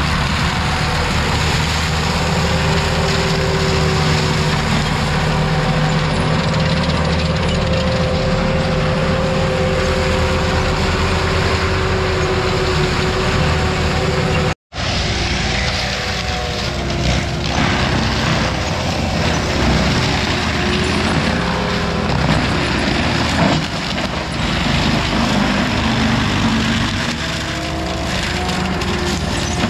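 Heavy equipment engine running steadily. After a brief cut about halfway through, the machine sounds more uneven as it works, with a few knocks.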